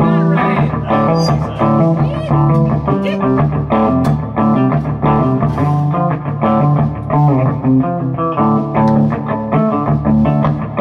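Electric guitar played through an amplifier, a run of changing notes and chords picked in a loud rock-blues style.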